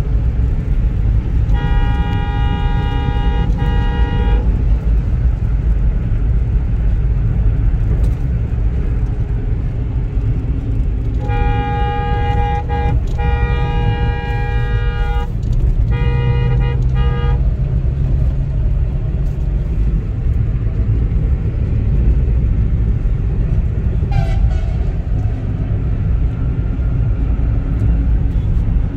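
Steady low road and engine rumble heard from inside a moving car's cabin. Over it come three spells of vehicle horn honking, one about two seconds in and two close together from about eleven to seventeen seconds in.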